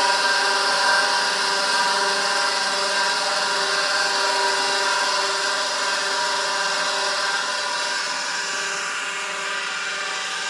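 The spindle of a 1981 Quantum 2040 8-inch hard drive spinning at speed, turned by its 115 V AC induction motor: a steady whine of several pitched tones over a steady hiss. Only the spindle runs; the heads do not move, because the drive has no electronics.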